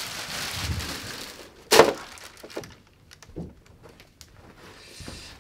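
Packaging rustling as a large flat-screen TV is lifted out of its box and plastic bag, with one sharp knock a little under two seconds in, followed by a few light clicks and taps.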